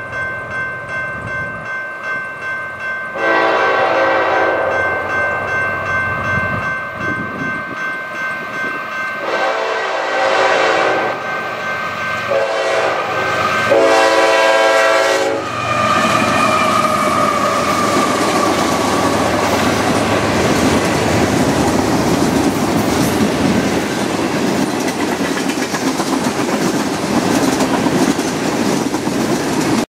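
A Norfolk Southern GE ES44AC diesel locomotive's air horn sounds the grade-crossing signal: two long blasts, one short, then one long. The last blast falls in pitch as the locomotive goes by. The engine and the long string of freight cars then pass close, with steady wheel clatter and rumble on the rails.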